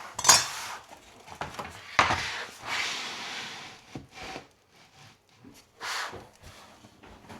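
Click bamboo flooring planks being handled and fitted: a few sharp wooden knocks, the loudest just after the start and another about two seconds in, with rubbing and scraping after it and quieter knocks later.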